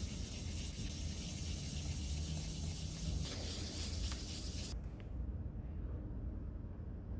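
Aerosol spray can hissing steadily, then stopping suddenly about five seconds in, over a low steady hum.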